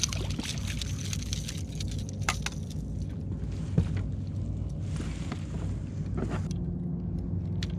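A small bass splashing at the surface on a jerkbait as it is lifted from the water beside a kayak. Scattered light clicks and knocks from the rod, line and hull follow, over a steady low hum.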